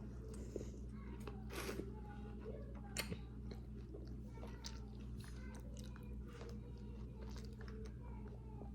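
Faint chewing of seafood, with scattered small clicks and crunches over a steady low hum.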